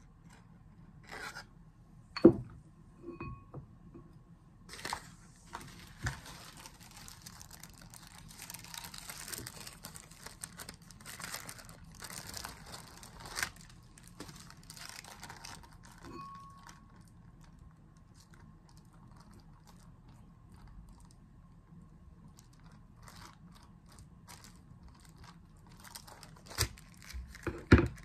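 Kitchen handling noises: a few sharp knocks of a bowl and utensils on a wooden chopping board, the loudest about two seconds in and just before the end. A stretch of crinkly rustling runs from about five to fourteen seconds in.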